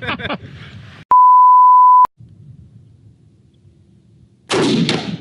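A steady one-tone censor bleep lasting about a second, cutting in and out sharply. Near the end, a single loud hunting-rifle shot.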